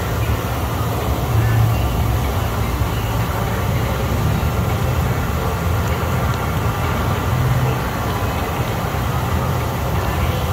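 Hot tub jets running: water churning and bubbling over a steady low rumble from the jet blower.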